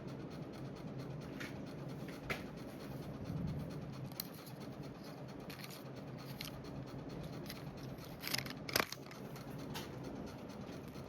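Hunter Summer Breeze ceiling fan running on high: a low steady hum with scattered irregular clicks, the loudest a pair about eight and a half seconds in.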